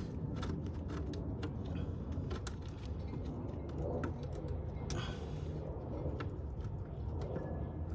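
Scattered light clicks and taps at irregular moments, from gloved hands and a tool working at a motorcycle's oil filter up under the fairing, over a steady low rumble.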